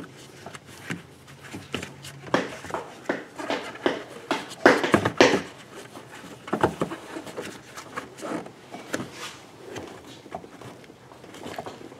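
Rubber dust cover being pushed and worked back onto the rear of a 2004 Honda Pilot's headlight housing over the new bulb: irregular rubbing, rustling and light knocks of rubber on plastic, busiest around five seconds in.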